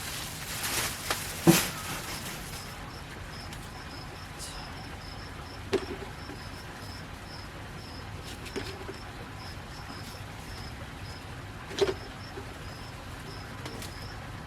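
A cricket chirping steadily, about two short high chirps a second. Over it come rustling near the start and three sharp snaps or knocks, the loudest about one and a half seconds in.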